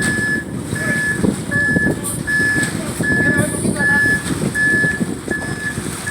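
Concrete mixer truck backing up: its reversing alarm beeps evenly, about eight beeps, over the running truck engine.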